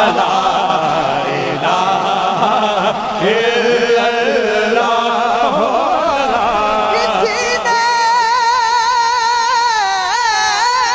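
Male voices singing an Islamic devotional song (hamd/naat) through microphones and a PA. About seven and a half seconds in, the singing settles into a long, high held note that wavers in pitch.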